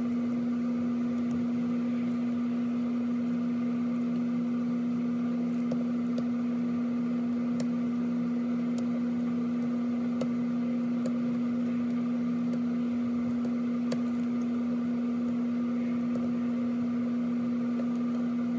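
A steady low hum, one held tone with fainter overtones, unchanging throughout, with a few faint scattered ticks.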